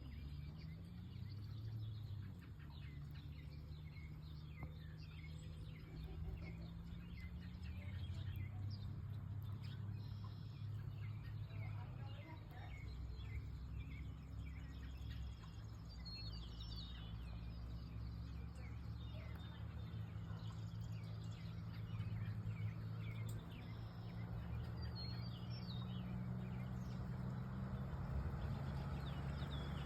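Birds chirping repeatedly over a steady low hum, like an idling engine, which rises slightly toward the end.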